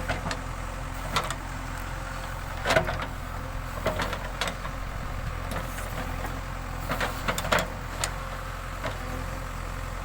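Diesel engine of a JCB 3DX backhoe loader running steadily, with several sharp clanks and knocks at irregular intervals, the loudest about three seconds in.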